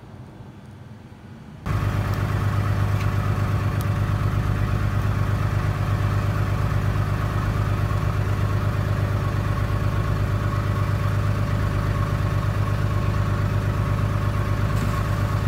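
Boat's engine running steadily with a deep, even hum, cutting in abruptly about a second and a half in; before that only faint background sound.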